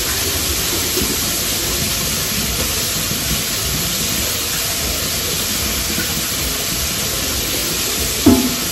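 Sausage patties sizzling on an electric griddle, a steady even hiss, with one short clank of a utensil near the end.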